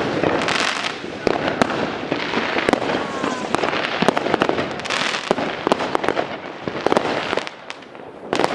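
Many fireworks and firecrackers going off at once: a dense run of sharp bangs over crackling bursts, easing off briefly near the end.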